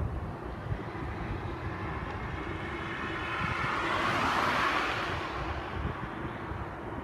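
Jet airliner passing, its engine roar swelling to a peak about four to five seconds in and then fading, with wind buffeting the microphone.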